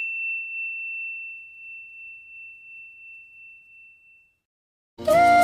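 A single high, clear bell-like ding rings out and slowly fades away over about four seconds. After a brief silence, music with a flute melody starts near the end.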